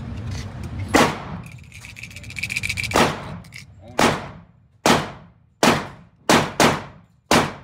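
Gunshots echoing in an indoor shooting range: about eight sharp reports with long reverberant tails, one about a second in, another near three seconds, then a quicker, uneven run of shots every half second to second from about four seconds on.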